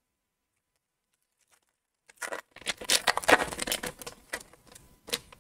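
Foil wrapper of an Upper Deck Series One hockey card pack crinkling and tearing as it is opened by hand. A dense burst of crackly rustling starts about two seconds in, lasts about three seconds, and ends with one sharp crinkle.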